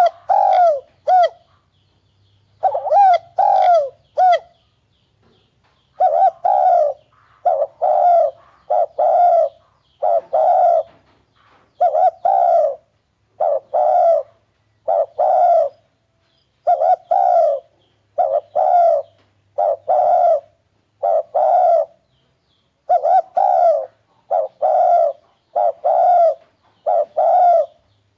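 Spotted dove cooing loudly, its low coo notes repeated in short groups of three or four with brief pauses between groups, and a longer pause of a second or two twice near the start.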